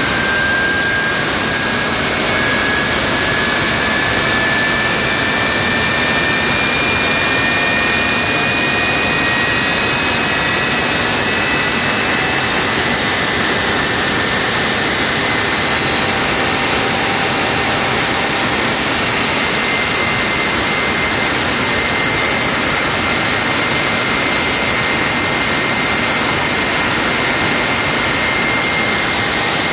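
Rolls-Royce/Snecma Olympus 593 turbojet running: a steady, loud roar with a whine that climbs slowly in pitch over the first dozen seconds, then holds.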